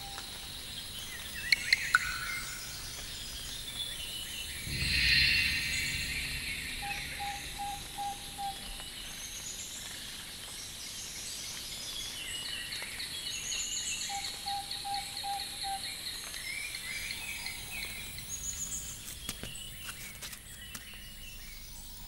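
Forest ambience of many birds chirping and calling, with a short run of low, evenly spaced notes heard twice. Three sharp clicks come about two seconds in, and a brief louder rush of noise about five seconds in.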